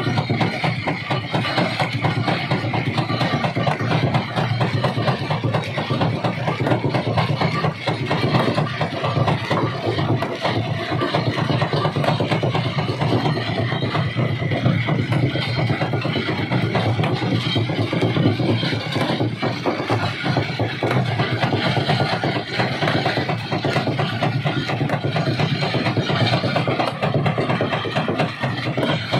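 Rock crusher running: a steady low engine drone under a continuous rattle and knocking of stone being broken.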